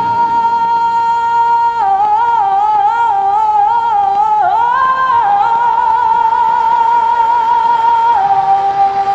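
A singer holding a long, high sustained note, with a wavering melismatic run in the middle, then stepping down to a lower held note near the end, with little accompaniment heard.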